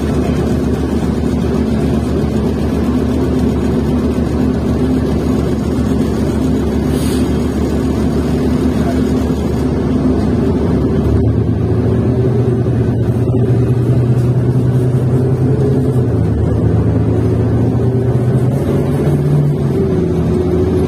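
Cummins Westport ISL-G six-cylinder natural-gas engine of a New Flyer XN40 transit bus running under way. About eleven seconds in, its note changes and a strong low hum sets in and holds steady.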